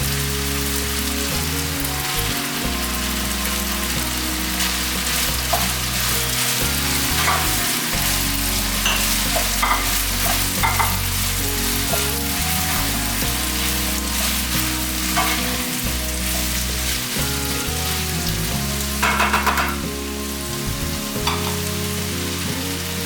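Food sizzling in a frying pan, with a utensil now and then clicking against the pan as it is stirred, most busily about three quarters of the way through.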